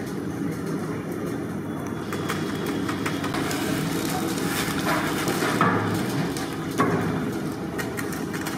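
Water poured from a jug splashing into a large aluminium pot of dry spice powders, a hissing splash for a couple of seconds in the middle, over steady background noise, with a couple of knocks after it.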